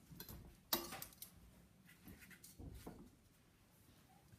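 Quiet handling sounds as cooked chorizo sausages are set by hand onto a china plate: one sharp tap a little under a second in, then a few faint soft knocks.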